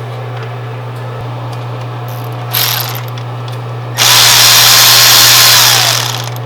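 Power tool spinning out a 10 mm bolt: a short burst, then a longer run of about two seconds with a whine that falls in pitch as the tool stops.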